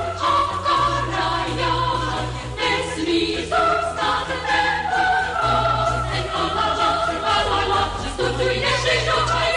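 Choir singing long held notes without clear words over a low sustained accompaniment, as part of a song.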